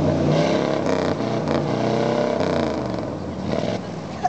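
Hot rod engine running, its pitch wavering up and down as it is blipped lightly, then easing off near the end.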